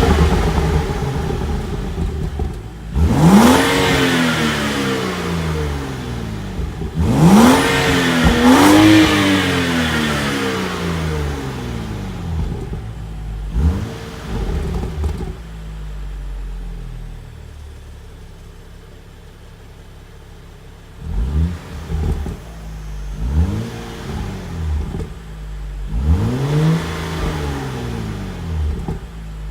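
2014 BMW 335i's 3.0-litre turbocharged inline-six (N55), on the M Performance Power Kit with the factory exhaust, being revved repeatedly. Three big revs rise and fall back early on, then two small blips. After a stretch of steady idle comes a quick series of short throttle blips, with one larger rev near the end.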